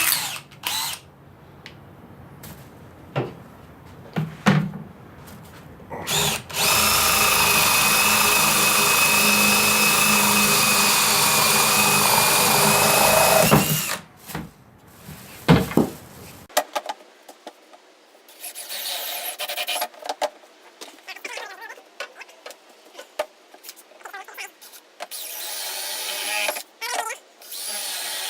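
Power drill with a 5/8-inch paddle bit boring a hole through a wooden board: a few knocks, then a steady whine for about seven seconds that stops abruptly. Shorter, quieter bursts of drilling and handling follow in the second half.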